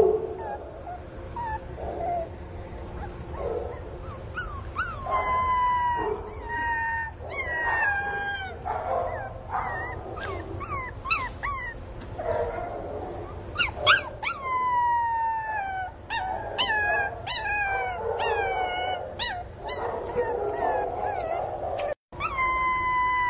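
Pinscher puppy whining and crying for its absent mother: a long run of high-pitched whines, many sliding down in pitch, some short and some drawn out, coming thick from about five seconds in.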